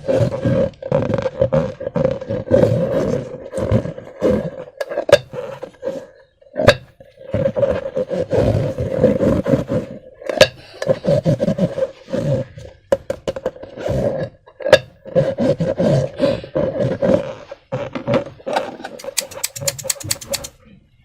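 Slime and rubber balloons being squeezed and handled: irregular wet squelches, rubbery rubbing and sharp clicks, with a quick run of clicks near the end.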